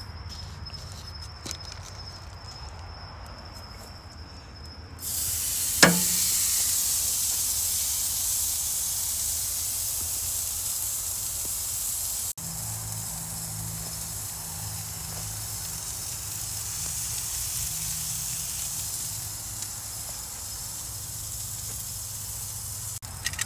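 Bone-in ribeye sizzling on the hot grate of a charcoal grill, the hiss starting suddenly about five seconds in as the steak goes down, with a sharp click just after.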